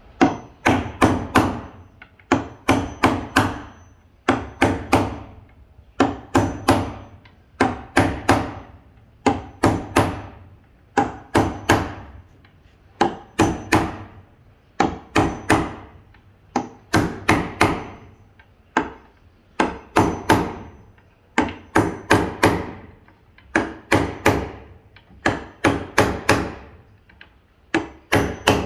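A hammer striking wood in quick bursts of two to four blows, one burst about every two seconds, each blow sharp with a short ring.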